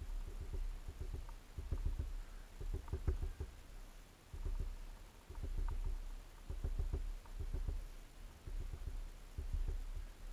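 Small bird pecking at a hanging seed feeder: bursts of rapid dull taps, a few strokes each, coming about once a second with short pauses between.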